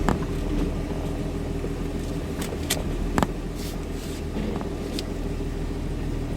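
Lifted Jeep's engine running steadily at low revs as it crawls over rocks, with a few short, sharp clicks and knocks along the way.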